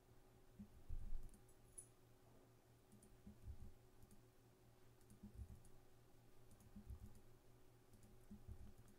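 Faint, scattered clicks of a computer mouse and keyboard, the loudest about a second in, over a steady faint hum.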